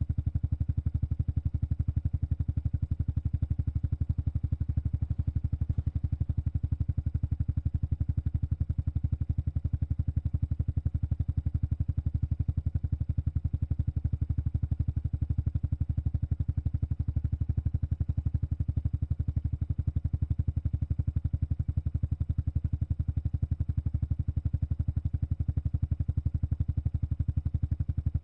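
Exhaust of a Honda Super Cub 110 Pro's air-cooled single-cylinder four-stroke engine idling steadily: an even, low, fast-pulsing note with no revving.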